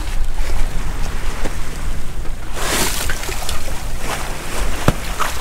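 Wind rumbling on the microphone and water rushing past the hull of a sailboat under way. About three seconds in, a louder hissing wash of water comes, and a sharp knock sounds near the end.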